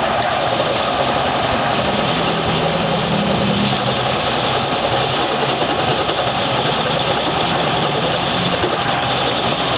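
Metal lathe running steadily, a continuous loud mechanical noise with a faint low hum and no break.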